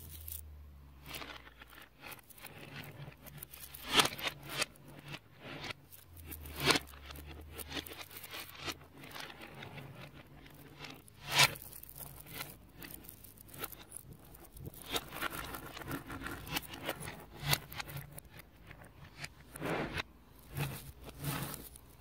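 Small neodymium magnet balls clicking and scraping as strands of them are pulled from a heap and snapped along the edge of a flat hexagon of balls on a wooden table. The clicking is irregular, with a few louder snaps.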